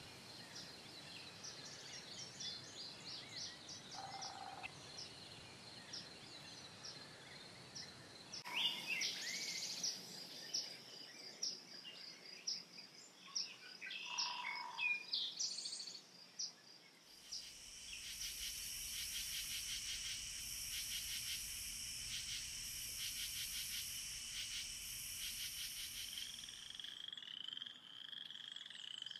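Outdoor ambience of insects and birds: a steady high insect whine with short chirps, then scattered bird calls and whistles from about eight seconds in. From about seventeen seconds a dense, rhythmic pulsing chorus joins in, high in pitch, and fades near the end.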